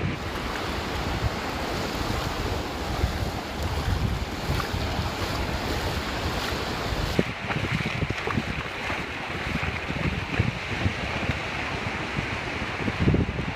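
Strong sea wind buffeting the phone's microphone in uneven gusts, over a steady hiss of ocean surf.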